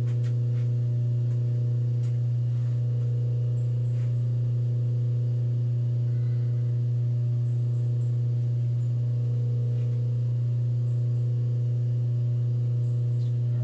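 Steady low electrical hum with a few fainter overtones above it, as from a motor or transformer running in the shop, unchanged throughout, with a few faint light ticks.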